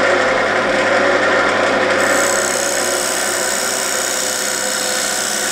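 Wood lathe running while a parting tool cuts a recess into a spinning camphor laurel bowl: a loud, steady scraping hiss over the lathe's hum. The cut gets brighter and hissier about two seconds in.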